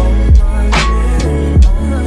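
Background R&B music with a steady beat and no vocals in this stretch: deep bass drum hits that drop in pitch, sharp snare or clap strokes between them, and a sustained bass line.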